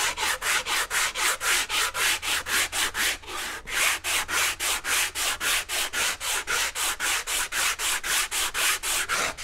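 Hand-sanding a rusty cast-iron Jaguar V12 exhaust manifold flange with sandpaper glued to a hardwood plywood board, in quick even back-and-forth strokes of about four a second with a brief pause about three seconds in. The flange face is being taken down past the rust to show the pitting that would make the gasket leak.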